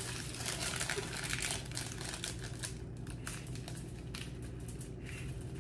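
A plastic snack bag crinkling and crackling continuously as it is handled.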